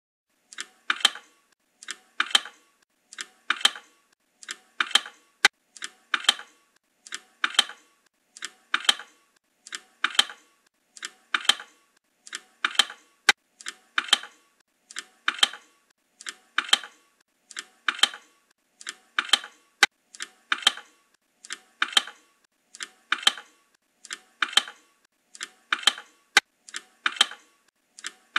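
Short bursts of quick clicking, three or four clicks to a burst, repeating very evenly about every second and a third with silence between. A single sharper click comes about every six to seven seconds.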